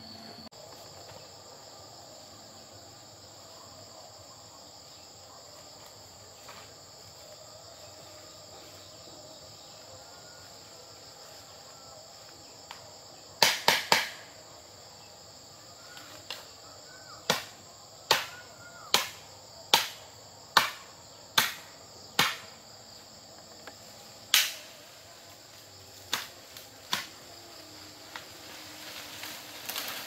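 Steady high-pitched chirring of crickets and other insects. About halfway through come sharp knocks: three in quick succession, then a regular run of about eight, a little under a second apart, then a few more spaced out near the end.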